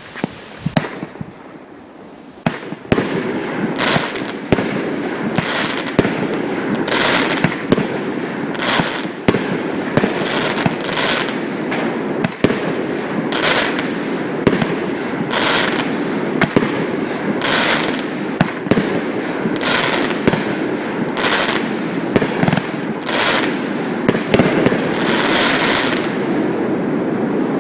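AAH Fireworks 'Just My Style' 16-shot firework cake firing. After a couple of quieter seconds with a few small pops, sharp bangs go off in quick succession, roughly one to two a second, over continuous crackling.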